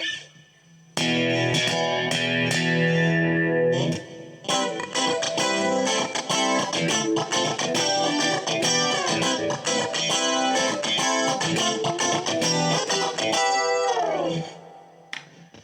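Fresher Straighter FS-331S made-in-Japan Stratocaster-style electric guitar played with a clean tone. A chord is struck about a second in and left to ring, then a busy run of picked notes and chords follows and dies away near the end.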